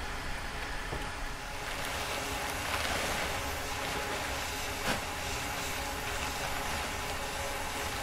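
Foster steam traction engine standing in steam, with a steady hiss of steam that grows fuller about two seconds in, and a single knock about five seconds in.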